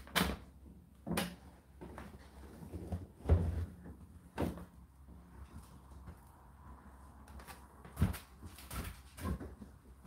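Laundry being stuffed by hand into a tumble dryer's drum: irregular knocks and bumps against the drum and door, with the strongest thump about three seconds in and another about eight seconds in.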